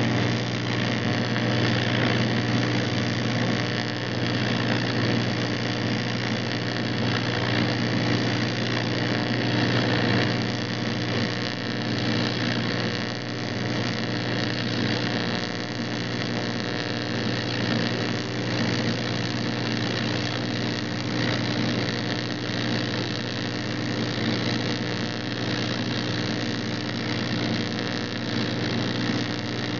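Hobart welder in use: a steady electrical hum under a continuous crackling hiss from the welding arc.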